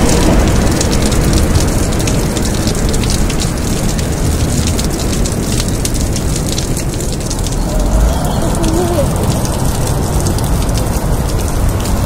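Meltwater from melting ice running off a building's roof edge and splashing onto the sidewalk, a dense rain-like patter of drops over a steady low rumble.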